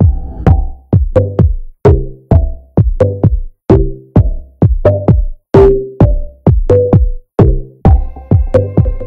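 Background electronic music with a steady drum-machine beat, about two beats a second; sustained higher chord notes come in near the end.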